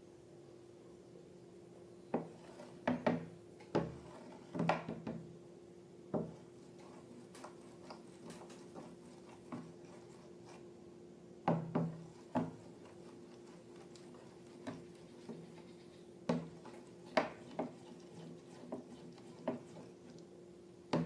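Slime being squished and worked, giving irregular sticky clicks and pops in small clusters over a steady faint hum.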